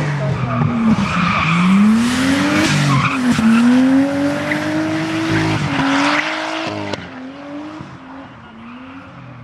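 Drift car sliding sideways: the engine revs up and down repeatedly while the rear tyres squeal and skid. The tyre noise and engine drop off sharply about seven seconds in as the car moves away.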